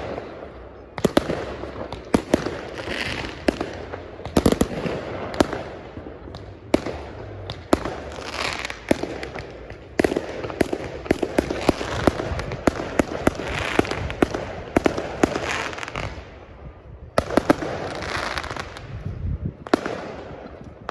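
Fireworks going off: an irregular run of sharp bangs and crackling, with a couple of brief lulls.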